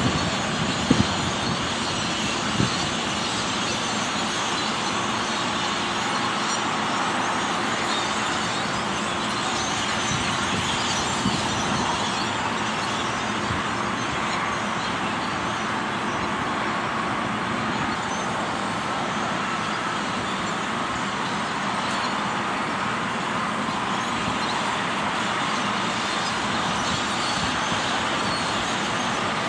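A huge flock of birds calling all at once, a dense, steady din of countless overlapping chirps, with a few brief knocks in the first few seconds.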